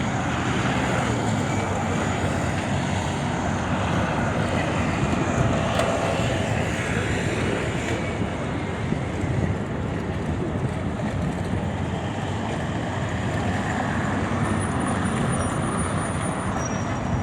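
Steady road traffic on a busy city avenue: a continuous wash of passing vehicles' engine and tyre noise.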